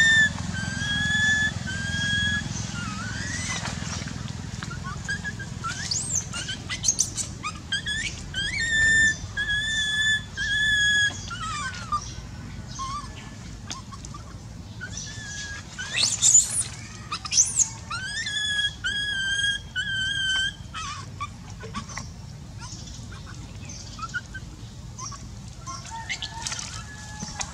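Baby macaque crying: a string of high, thin, whistle-like calls, some held level and some sliding upward, in bouts with short pauses, growing fainter near the end.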